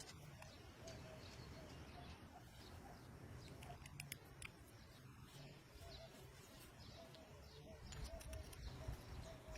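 Near silence with faint bird calls: short repeated notes every second or so, with a few faint clicks.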